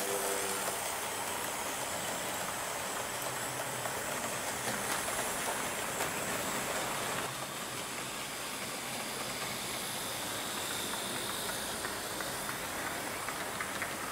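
H0-scale model trains running around layout track: a steady rushing hiss of small wheels on the rails and the locomotive motors, a little quieter from about seven seconds in.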